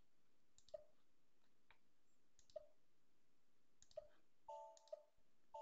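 Near silence with faint computer mouse clicks, about five spaced a second or so apart, and two brief faint tones near the end.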